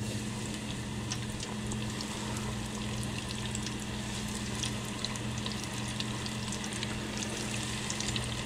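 Breaded shark bites frying in an electric deep fryer's hot oil, brought up to 375 degrees: a steady bubbling sizzle with scattered pops and crackles, which grow busier as more pieces go in. A low steady hum runs underneath.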